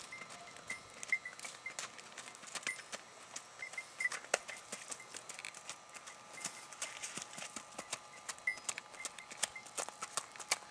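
Hoofbeats of a Tennessee Walking Horse filly shod in flat steel keg shoes, gaiting under a rider: a quick, uneven run of sharp clip-clop strikes on hard ground.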